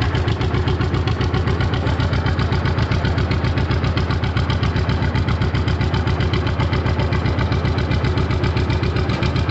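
John Deere G tractor's two-cylinder engine running steadily, with an even, rapid pulsing beat.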